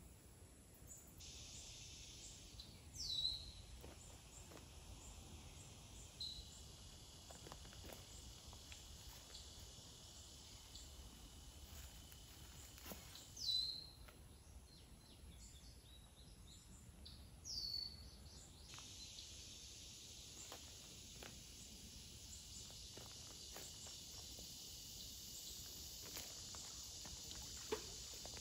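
Insects droning steadily in a high band that starts, shifts and swells a few times, with a bird giving three short down-slurred calls, the loudest sounds, about 3, 13 and 18 seconds in. A few faint clicks and taps sit underneath.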